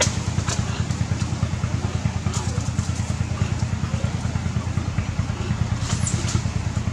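A small engine idling steadily, with an even low pulse. A short high squeak comes about six seconds in.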